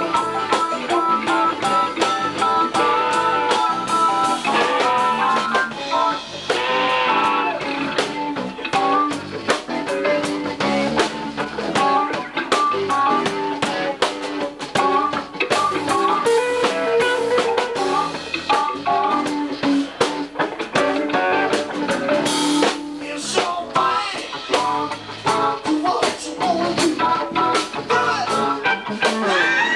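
Live band playing an instrumental blues-rock passage: keyboard and guitar lines over bass guitar and a steady drum-kit beat, with no singing.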